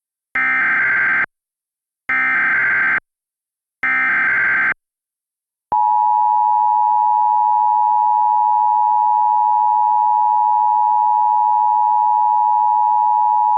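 Emergency Alert System alert tones: three short bursts of SAME header data tones, each just under a second with a brief pause between, followed by the steady two-tone attention signal held for about eight seconds and cutting off abruptly near the end. It is the standard opening of an emergency alert.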